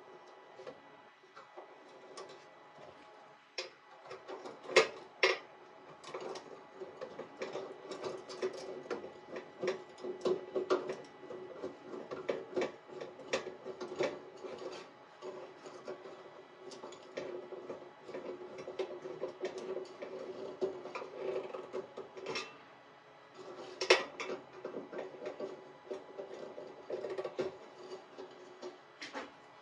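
Metal clicking and scraping as the nuts and screws on a pillar heater's rod terminals are fitted and tightened by hand and screwdriver, with a few louder, sharper clicks.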